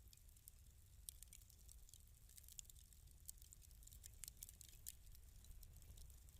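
Faint fireplace crackle: irregular sharp pops and snaps from burning wood over a low steady rumble.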